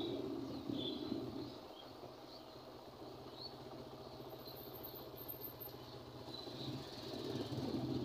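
A vehicle engine running with a steady low hum and road noise, louder at the start and swelling again near the end. Birds chirp in short high calls several times over it.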